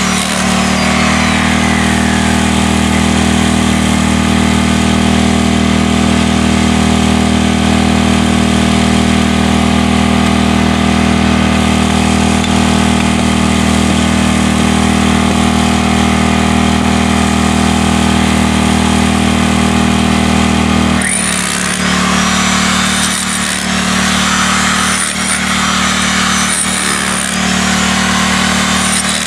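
Hammer drill hammering steadily into concrete for about twenty seconds, then running in shorter, rougher bursts with brief dips near the end.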